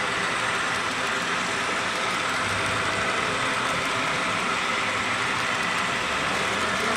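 HO scale model trains running on a club layout, a steady hum and hiss with no break.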